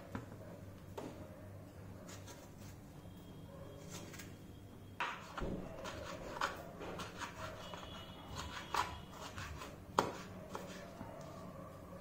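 Knife tapping against a wooden chopping board as a tomato is sliced and then diced: a few scattered taps at first, then quicker, irregular chopping from about five seconds in.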